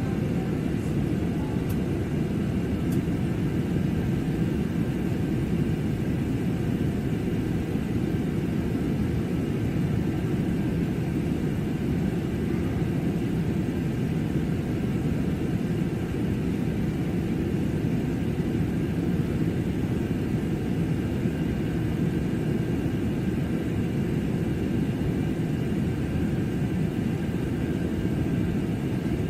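Steady cabin noise of a jet airliner in flight: a constant low rush of engine and airflow, with faint steady higher tones over it.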